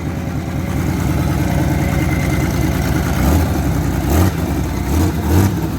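1991 Camaro's 3.1 L V6 running just after it first starts on its newly replaced fuel injectors, which cured its crank-but-no-start. It idles, then is revved in several short blips in the second half.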